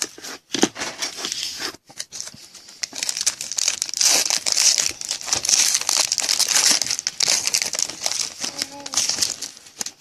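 Wrapper of a 2014 Panini Prizm Football jumbo card pack being torn open and crinkled by hand, a dense crackly rustle that is busiest in the middle.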